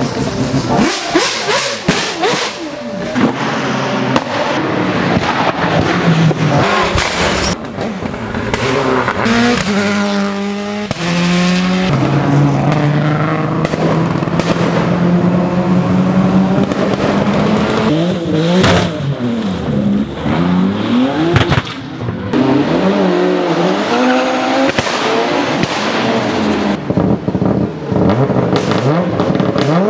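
Racing car engines at high revs, climbing and dropping through gear changes, with sharp exhaust pops and crackles from backfire, densest in the first several seconds. Later several cars pass one after another, each engine note falling as it goes by.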